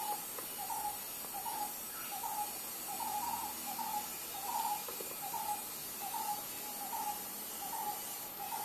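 A bird calling over and over, short pitched notes about twice a second, over a steady background hiss.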